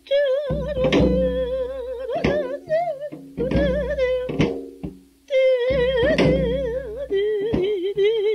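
A singer holding long, wavering notes with a wide vibrato in Korean traditional style, over a plucked string instrument with sharp plucked accents.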